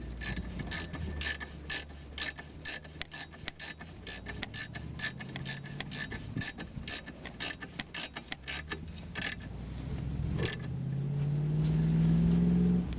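Ratchet wrench clicking in quick, even runs as a bolt is tightened, for about nine seconds. Near the end, a hum rises in pitch and grows louder for about two seconds, then cuts off suddenly.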